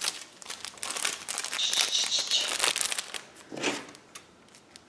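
Crinkling of a small slime-kit packet being handled, an irregular crackle that gets denser for about a second in the middle.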